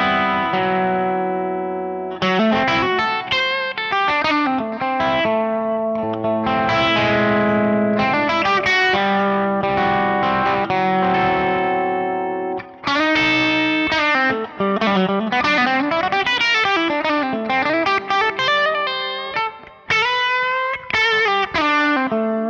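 Electric Telecaster with Dreamsongs Vintage '50s single-coil pickups, played through a Kemper profiling amp with a distorted, crunchy tone. Held chords ring out first, then quick single-note lines with string bends and vibrato follow, with two short breaks about halfway and near the end.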